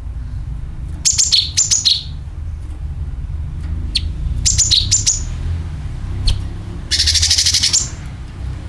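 Cucak kinoi calling: quick bursts of rapid high chirps about a second in and again around four to five seconds, then a longer, dense rapid trill (the 'nyeret') near the end, over a steady low hum.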